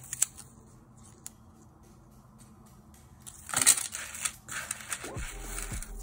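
Plastic packaging and cardboard tags of glass bead strands rustling and crinkling as they are handled, loudest in one sharp rustle about three and a half seconds in. Quiet background music comes in near the end.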